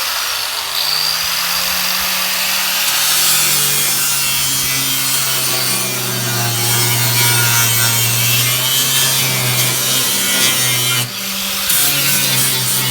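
Hand-held electric power tool working on the car's steel bodywork. The motor hums under load with its pitch sagging and recovering, over a grinding hiss, and briefly cuts out and restarts about eleven seconds in.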